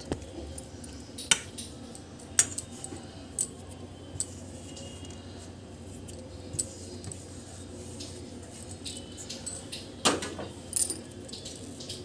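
Metal spoon clinking against a steel mixing bowl as spice powders are tipped in: a few sharp, separate clinks spread out, the loudest a cluster about ten seconds in.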